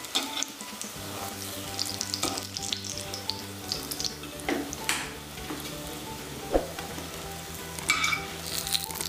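Shallow oil sizzling around green pea kababs in a kadhai as they are lifted out. Scattered clicks and scrapes come from a steel slotted spoon and a wooden spatula against the pan.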